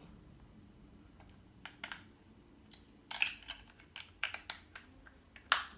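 Irregular sharp plastic clicks and snaps from a remote control being handled as batteries are fitted into it, with the loudest snap near the end.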